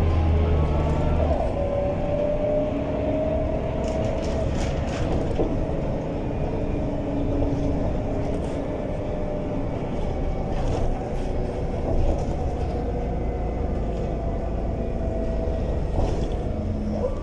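Mercedes-Benz O345 city bus with a ZF 4HP-500 automatic gearbox under way. The deep drone drops away about a second in, and a whine then rises slowly in pitch before easing back down, with a few brief rattles.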